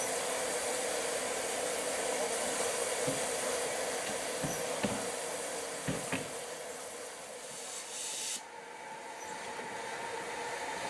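Narrow-gauge steam locomotives standing with steam hissing steadily, with a few knocks around the middle; the hiss drops suddenly about eight seconds in.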